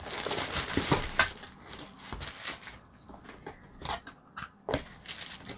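Plastic bubble-wrap packaging crinkling and rustling as a small unit is lifted out of a cardboard box, dense at first, then scattered clicks and light knocks against the box.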